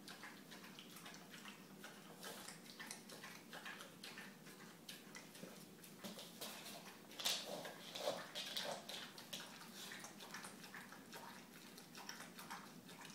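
Dog eating from a metal bowl through a mesh muzzle: faint, irregular wet lapping and chewing with small clicks, a few louder ones about seven to nine seconds in.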